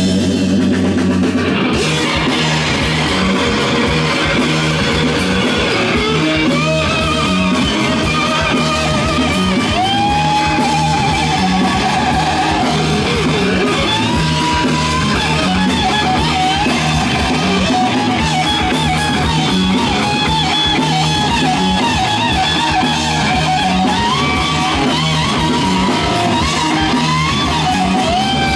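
Live rock band playing: electric guitars, bass guitar and drum kit, with a lead guitar line of bent, wavering held notes above a steady beat.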